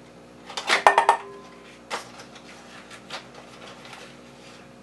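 A metal spoon clinking against a stainless steel mixing bowl as flour is spooned in. A quick run of clinks about a second in ends in a short metallic ring, followed by a single clink a second later and a few faint taps.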